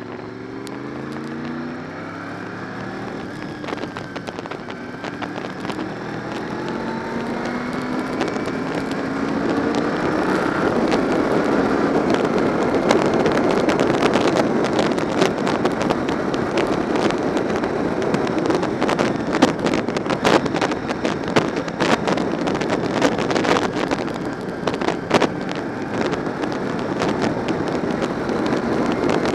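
Honda VFR750's V4 engine pulling hard, its pitch climbing steadily through the first ten seconds. Wind rush on the camera microphone then grows louder and covers the engine, with constant gusty buffeting.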